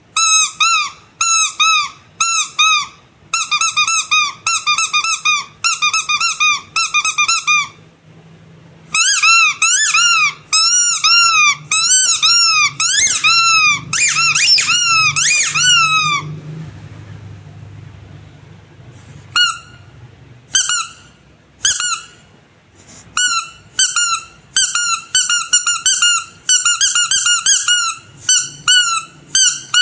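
Squeaky rubber animal toys being squeezed in quick runs of short, high-pitched squeaks, several a second, with a pause of a few seconds just after the middle.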